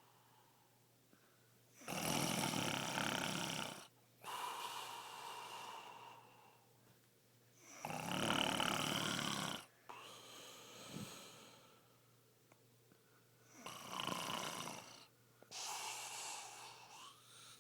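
A man snoring heavily in sleep: three loud snores about six seconds apart, each followed by a softer breath.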